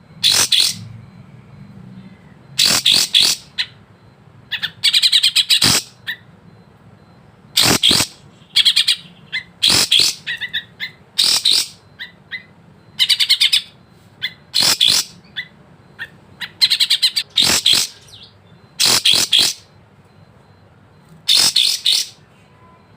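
Kapas tembak songbird singing in short, sharp phrases of rapid high chirps, about a dozen phrases each lasting under a second, with pauses of a second or so between them.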